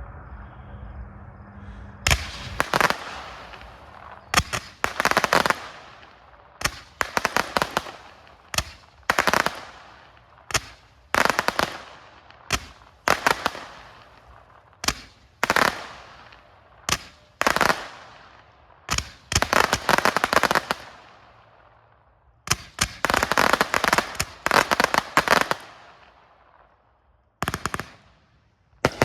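A 204-shot zipper firework cake firing, starting about two seconds in. It goes off in repeated quick volleys of sharp shots, each trailed by loud reports and crackle.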